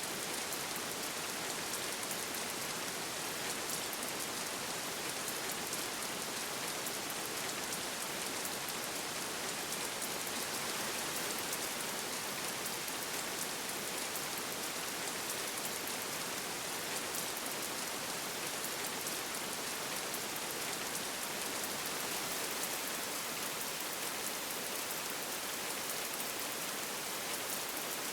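Steady rainfall: an even hiss of rain with a fine patter of individual drops, keeping a constant level throughout.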